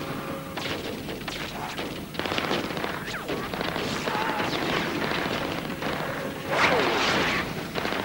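Film sound effects of gunfire and explosions, a dense run of shots and blasts with a louder blast about two-thirds of the way through.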